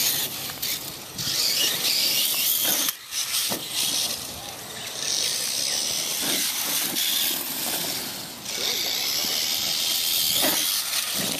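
Clod Buster-type radio-controlled monster trucks running on grass: a high, hissing whir from their motors and gears that swells and fades as the throttle is worked.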